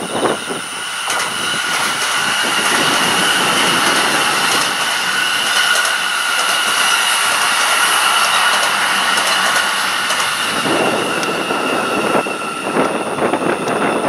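A JR Joban Line electric train passing at speed. The rush of its wheels on the rails builds over the first couple of seconds and holds steady, then turns into a rougher, uneven rumble in the last few seconds as the cars go by.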